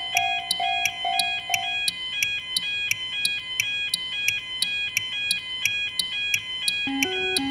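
Japanese railroad crossing warning bells ringing, several crossings' alarm tones layered in a steady rhythm of about two strikes a second, the high tones alternating between two notes. A lower two-note tone drops out about two seconds in, and a deeper two-note crossing alarm comes in near the end.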